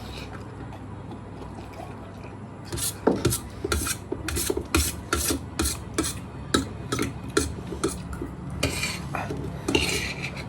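Eating utensils scraping and stirring in a bowl: after a few seconds, a run of short quick strokes, about four a second, then two longer scrapes near the end.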